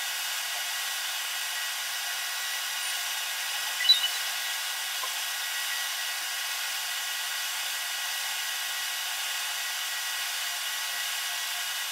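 Svarog REAL ARC 250 welding inverter running steadily under load at about 74 A. Its cooling fan gives a constant airy whir, with a faint high whine of several steady tones. A brief click comes about four seconds in.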